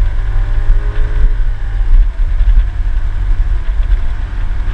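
Motor scooter's engine running while riding along a bumpy dirt road, under a heavy, steady low rumble from wind and road.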